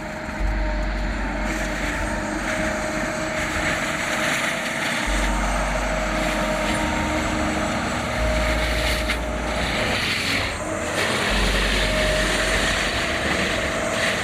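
Tracked forestry mulcher's engine running steadily under load, with a continuous grinding noise and a steady whine.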